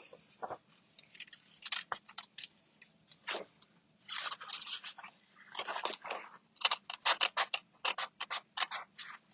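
Scissors snipping through stamped paper to cut out leaf shapes: scattered single snips, then a quick run of cuts, about four a second, near the end.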